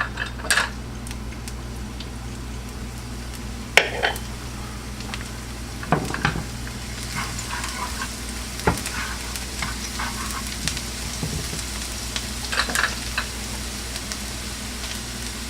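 Garlic frying in hot oil in a pan, a steady sizzle that grows a little after the middle. A spatula clacks and scrapes against the pan a few times as the garlic is stirred.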